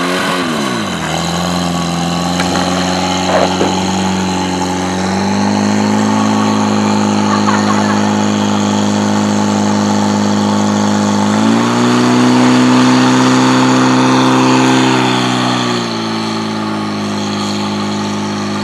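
Portable fire pump engine running at high revs under load, pumping water through the attack hoses. The engine note steps up about five seconds in and again around eleven seconds, drops back near sixteen seconds, and rises briefly once more near the end.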